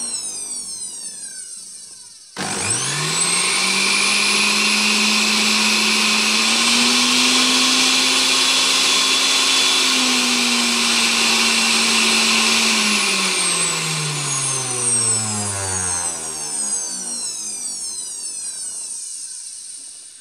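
Moulinex centrifugal juicer motor, switched on at the dial. It spins up quickly and runs at a steady whine, its pitch rising a little partway through and dropping back. It is then switched off and winds down slowly, the pitch falling as the basket coasts to a stop. At the very start the motor is still coasting down from an earlier run.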